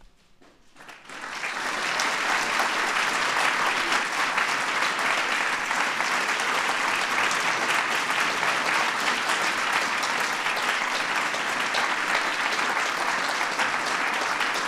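Audience applauding, starting about a second in and quickly building to a steady level.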